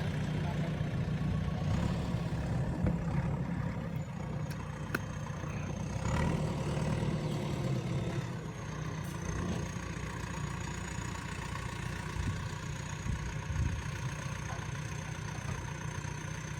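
JCB 3DX backhoe loader's diesel engine running steadily at low revs, with a faint thin high whine above it.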